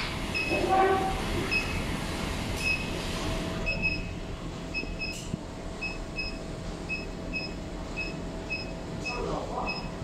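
JL-25KW induction melting furnace running with a crucible in its water-cooled coil: a steady hum with a faint constant tone, broken by short, high chirps that come singly or in pairs about once or twice a second.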